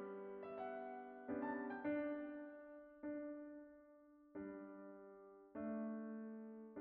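Soft background piano music: a slow run of single notes and chords, each struck and left to fade before the next.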